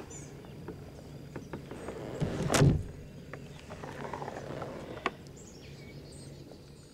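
Kayak gear being worked by hand, likely the Hobie kayak's rudder being pulled up: a few light knocks and one louder scraping rush about two and a half seconds in.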